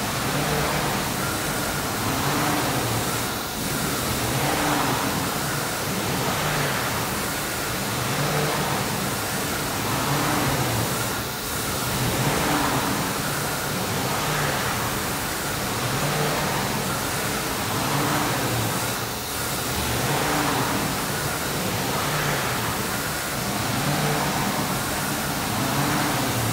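CIMTECH CNC router running: a steady rushing noise with motor hums that come and go as the gantry and head travel over the table. The pattern repeats about every eight seconds.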